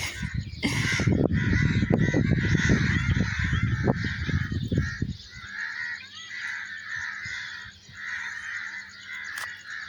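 A large flock of birds calling together in a continuous, overlapping chatter. A loud low rumble sits under the calls for the first five seconds or so, then stops abruptly, leaving the calls alone and quieter.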